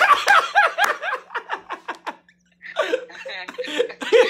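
A man laughing hard: a quick run of short ha-ha-ha's that breaks off for about half a second near the middle, then starts up again.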